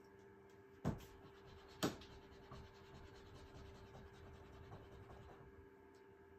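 Faint marker strokes scratching on a whiteboard as an equation is written, with two sharp taps about one and two seconds in.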